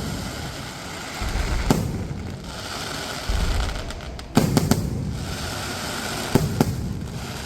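Fireworks going off: sharp bangs of bursting shells, one about two seconds in, a quick cluster a little past halfway and two more near the end, with low rumbling between them.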